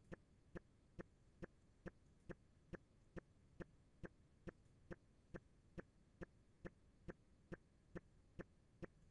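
Faint, very even ticking, a little over two ticks a second, over near silence.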